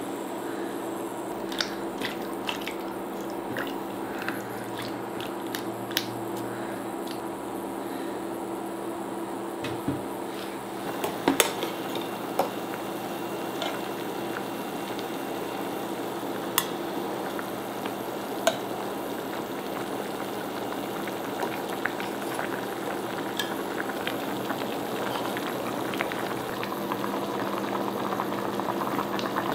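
Stew liquid in a stainless-steel saucepan coming to the boil, a steady bubbling hiss that grows a little louder toward the end, under a faint steady hum. Scattered sharp clicks of a metal ladle against the pot and skimming bowl as the scum is skimmed off.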